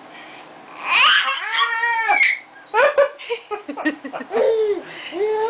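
A baby laughing and squealing, in several drawn-out, high, arching cries with short bursts in between.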